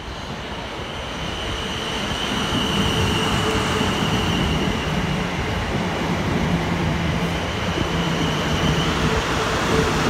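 Two coupled Class 450 Desiro electric multiple units running into the platform and passing close by as they slow to stop. The sound grows louder over the first few seconds, then holds as a steady rumble with a low hum and a steady high whine that stops near the end.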